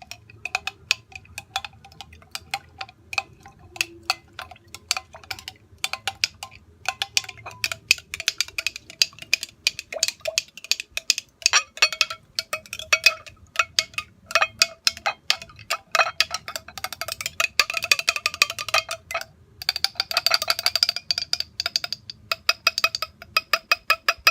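A spoon stirring in a glass jar, clinking quickly and irregularly against the sides so the jar rings at a few steady tones. The clinks grow denser and louder from about eight seconds in.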